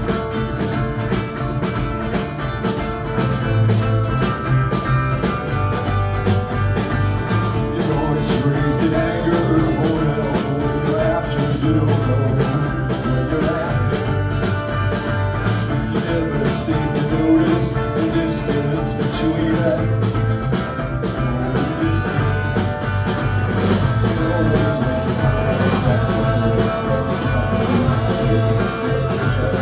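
Live rock band: electric guitars and drums playing a song at a steady, driving beat, loud in the room.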